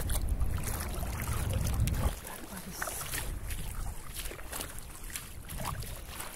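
Wind rumbling on the phone's microphone over open tidal flats, stopping sharply at a cut about two seconds in. After the cut there is quieter wind with scattered light splashes of feet walking through shallow water on wet sand.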